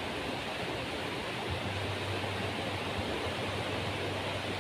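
Steady, even rush of sea waves washing onto the shore, with no distinct breaks or splashes.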